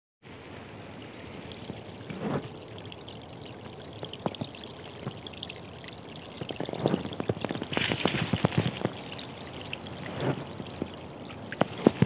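Shallow forest stream trickling and gurgling over fallen logs and debris. Scattered crunches and cracks of footsteps on dry leaves and twigs come in over it, loudest a little past the middle.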